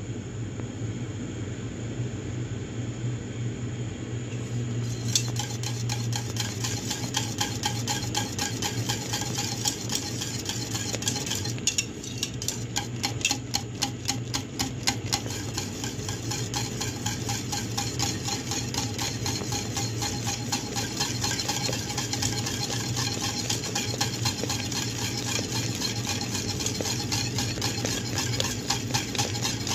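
Wire whisk stirring a thick, cooking ube mixture in a metal pot, its wires scraping and ticking against the pot in quick, steady strokes, over a low steady hum.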